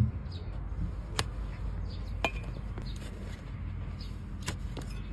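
Overgrown donkey hoof horn being pared with a hoof-trimming knife: a handful of sharp, separate cracks as pieces of hard horn are cut away, over a steady low hum.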